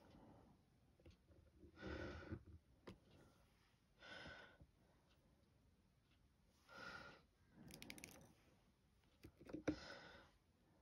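Near silence: four soft breaths, about every two to three seconds, and scattered faint clicks.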